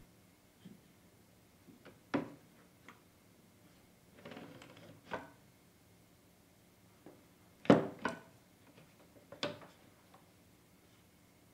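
Scattered clicks and knocks of a circular saw being handled while its cutting depth is set, with a short scraping slide a little under halfway and the loudest knock about two-thirds of the way through.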